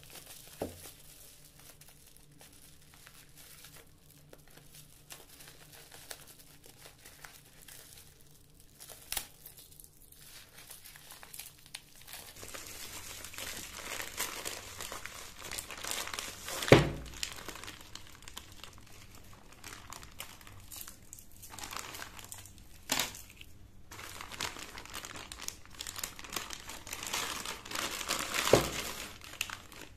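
Bubble wrap and a plastic zip-lock bag crinkling as they are handled and cut open, sparse at first and busier and louder after about twelve seconds. A few sharp thumps, the loudest about halfway.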